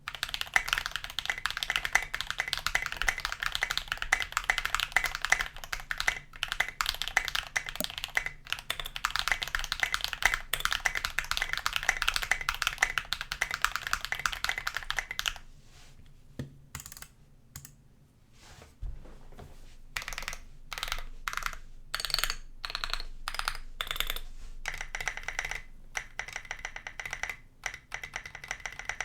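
Typing on a mechanical keyboard with lubed Holy Panda tactile switches and SA-profile keycaps on a brass plate in an aluminium 65% case. A fast run of keystrokes lasts about fifteen seconds, then slower, spaced-out key presses follow, and the pace picks up again near the end.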